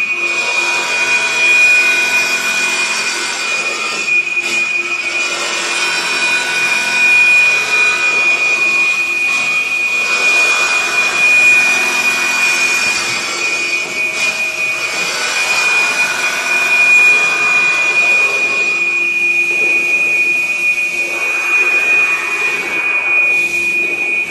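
A 5-axis CNC bridge saw running: a steady high-pitched whine over a rushing noise that swells and fades every few seconds.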